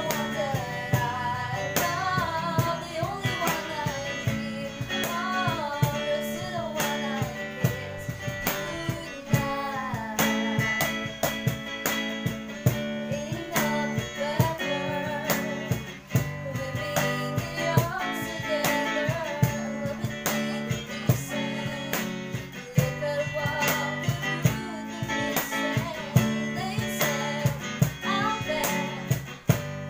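A woman singing a slow pop-country melody over an electric guitar, with hand strikes on a cajon keeping a steady beat.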